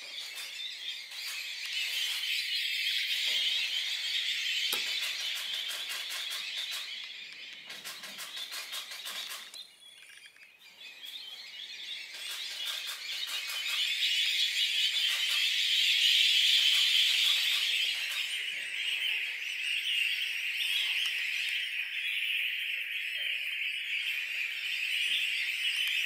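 A large flock of shorebirds calling all together, a dense, continuous chatter of high calls that dips briefly about ten seconds in and then builds again.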